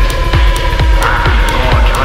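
Electronic dance music from a DJ mix: a steady pounding kick drum and deep bass with evenly spaced hi-hat ticks and a held synth tone.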